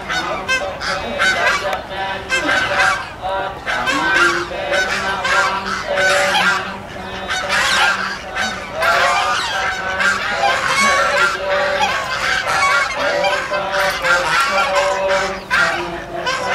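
White domestic geese honking, many loud calls following one another in quick succession and often overlapping.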